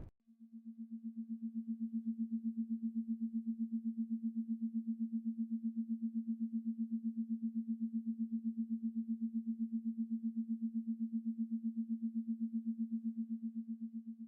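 Space-sound sonification attributed to a dwarf planet or one of its moons: a single low steady electronic tone with a fast, even pulsing, fading in over the first couple of seconds and cutting off near the end.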